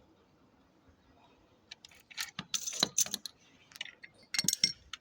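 Metal hand tools and fittings clinking and clattering in irregular bursts, starting about a second and a half in.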